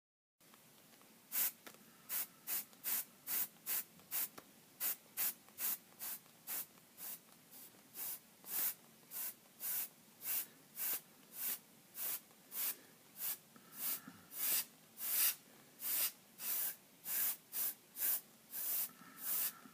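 Airbrush spraying paint in short hissing bursts, about two a second, starting about half a second in.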